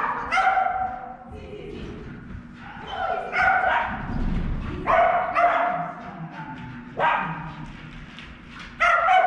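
A dog barking repeatedly, about six drawn-out barks a second or two apart.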